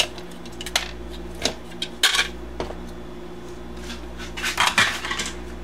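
Small plastic toy parts and gears clicking and clattering against the workbench as they are handled and set down: a few separate knocks, then a quick cluster near the end.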